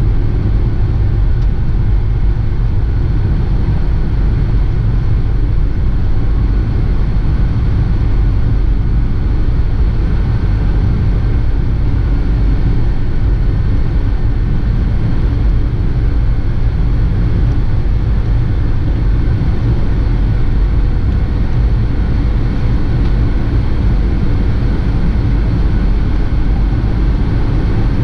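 Jet airliner's cabin noise at the window over the wing while taxiing: a steady low rumble of the engines and air, unchanging in level.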